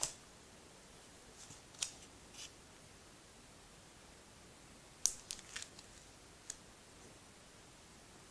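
Plastic comic bag crinkling in faint, short crisp ticks as a bagged and boarded comic is handled and turned over: a few scattered ticks, then a quick cluster about five seconds in.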